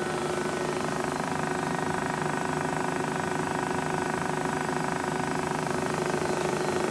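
Kent USA JHC-18S centerless grinder running steadily: an even machine hum with a strong constant tone and a faint hiss.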